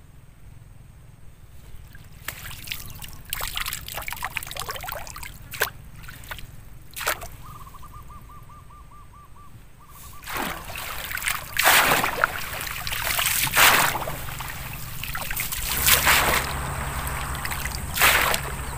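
Wading through shallow marsh water and grass: splashing, sloshing footsteps and rustling stems, growing louder and busier about halfway through. A bird gives a short trilling call around the middle.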